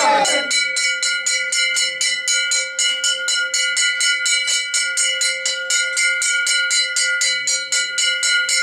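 Temple bell rung rapidly and continuously in worship, about five strikes a second, each strike over a steady ringing chord of overlapping tones.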